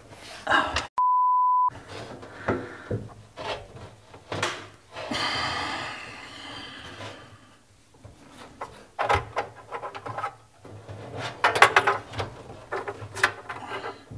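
A single steady beep of under a second, about a second in, with all other sound cut out around it: a censor bleep. Around it come scattered knocks, rattles and a short rasping scrape as things are handled.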